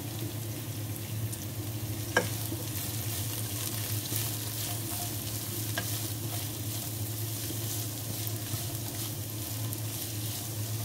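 Julienned vegetables (cabbage, capsicum, carrot) sizzling steadily in hot oil in a nonstick wok while being stirred with a spatula. There is a sharp click about two seconds in and another near six seconds.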